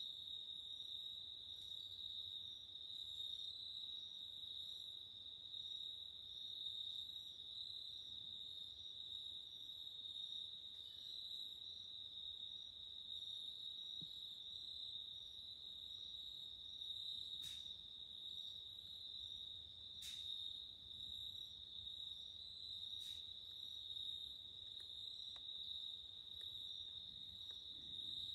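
Crickets trilling in a steady, high-pitched chorus, with three faint clicks in the second half.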